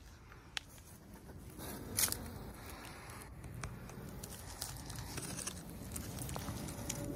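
Dry leaves and garden vegetation rustling and crackling, with a few sharp clicks and a louder rustle about two seconds in, over a low background rumble.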